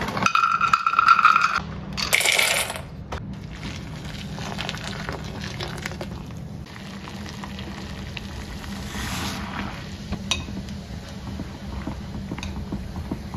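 Dried soy chunks tumbling into a stainless-steel bowl, setting it ringing for a second or two, followed by a short rush of water poured in over them.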